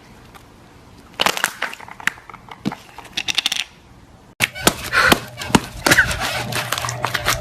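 Slime being squeezed and worked by hand, crackling and popping in quick clicks. The clicks come in two stretches, with a sudden break a little after four seconds in.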